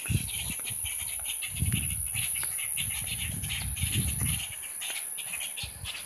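Summer backyard ambience: a steady high-pitched insect drone with fast pulsing chirps over it, and low rumbles on the phone's microphone twice in the middle.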